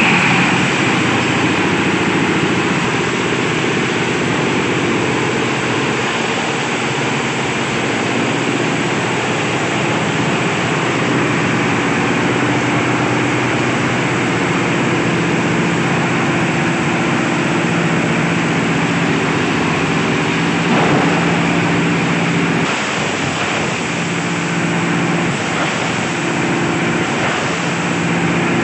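Compost chopper driven by a small single-cylinder diesel engine running steadily, with the rushing noise of the blades shredding compost material.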